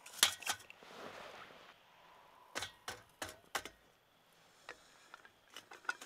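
Camp gear being handled and packed: a run of sharp clicks and light knocks, a quick cluster right at the start, four evenly spaced knocks around the middle, then fainter ticks toward the end.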